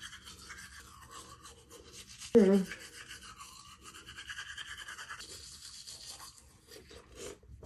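Bamboo toothbrush scrubbing teeth, a quiet, scratchy brushing sound, with one short muffled vocal sound about two and a half seconds in.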